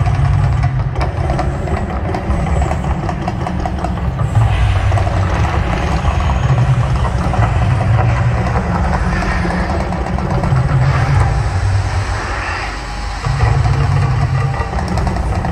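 The Mirage volcano show erupting: a loud, deep rumble that swells and pulses every few seconds as the fire jets go up.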